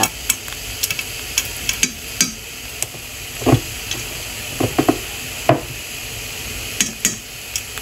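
A spoon clicking and tapping against a nonstick pan as crushed garlic is dropped into the water with the pork, about a dozen scattered knocks. A steady hiss runs underneath.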